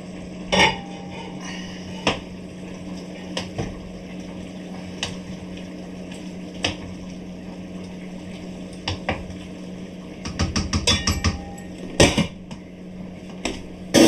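Metal utensils and a pot lid knocking and clinking against a large stainless-steel stockpot as stew is stirred, over a steady low hum. There is a quick run of rapid clinks about ten seconds in, then one sharper knock shortly after.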